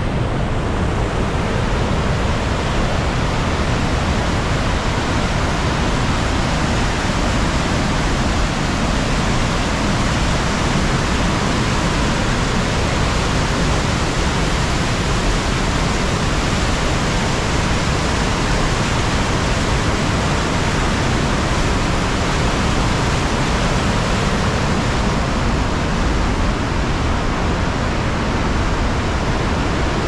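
Large river waterfall rushing, a loud, steady wash of falling water that doesn't change.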